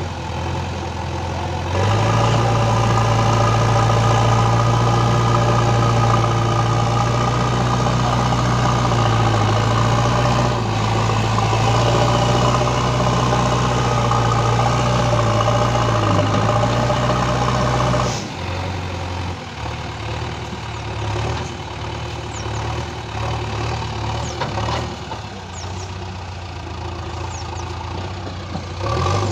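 JCB 3DX backhoe loader's diesel engine running hard under load from about two seconds in, a steady drone with slight dips in pitch, as the machine works against wet sand with its backhoe arm. About two-thirds of the way through it drops back to a lower, uneven idle.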